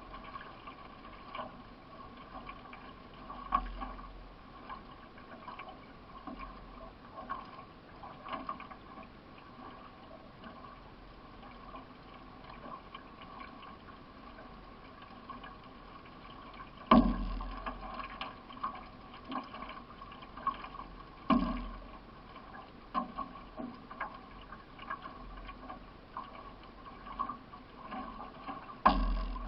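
Solo racing canoe being paddled hard: steady paddle strokes and water washing along the hull, with three louder knocks against the boat, about halfway through, a few seconds later, and near the end.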